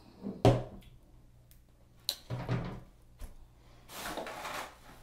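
A few knocks and clicks of things being handled and set down: a sharp one about half a second in, then several more around the middle. A soft rustling hiss follows near the end.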